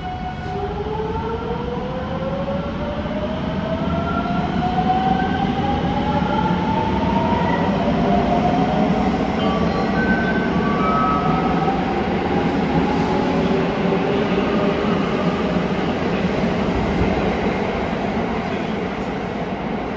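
JR West 281 series electric limited express pulling away from an underground platform. Its traction motors give several whines that rise in pitch over the first eight seconds or so as it accelerates, over a steady rumble of wheels on rail that grows louder and then holds.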